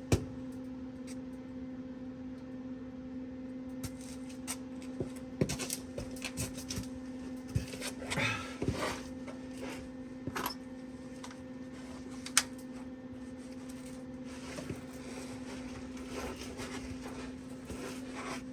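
Steady low electrical hum with scattered clicks, taps and brief scrapes of metal parts being handled.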